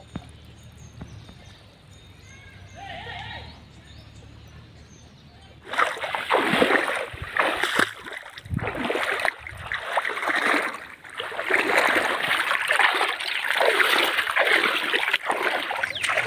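Pond water sloshing and splashing as people wade through it waist-deep, in irregular surges. It starts abruptly about six seconds in, after a faint quiet stretch.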